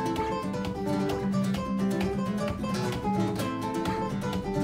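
Background music: strummed and picked acoustic guitar.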